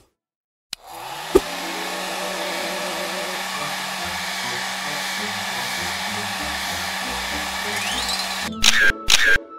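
Hair dryer blowing: it starts up about a second in and then runs steadily with a constant hiss and hum. A few short, sharp sounds come near the end.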